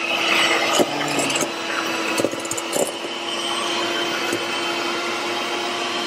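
Electric hand mixer running steadily, its beaters creaming butter and sugar in a stainless steel bowl, with a few clicks of the beaters against the bowl in the first few seconds.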